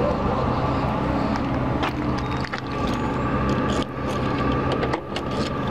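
A steady low engine hum with scattered sharp clicks and knocks; about four seconds in, a key goes into a pickup truck's door lock.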